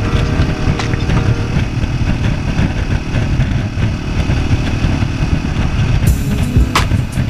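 Yamaha XT660Z Ténéré's single-cylinder engine running at road speed, heard under a heavy, churning low rumble of wind on the microphone. A sharp click sounds near the end.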